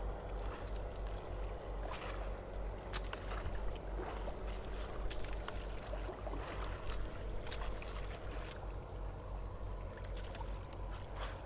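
Small outrigger boat at sea: water lapping and slapping against the hull over a steady low rumble, with scattered light clicks and splashes.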